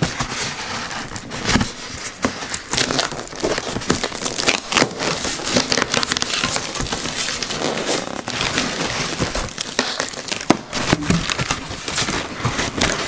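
Clear plastic packing crinkling and rustling as it is handled in a foam fish-shipping box, with many sharp, irregular crackles.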